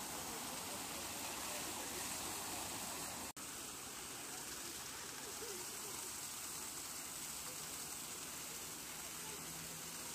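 Fountain jets splashing steadily into the basin, a constant rushing hiss of falling water. The sound cuts out for an instant about a third of the way in.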